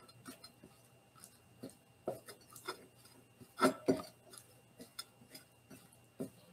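Silicone spatula stirring meat and shredded cheese in a glass mixing bowl: scattered soft scrapes and light knocks against the glass, with two louder knocks close together a little over halfway through.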